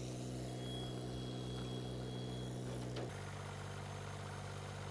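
An engine idling steadily, with a low even hum; its pitch shifts slightly about three seconds in, with a faint click.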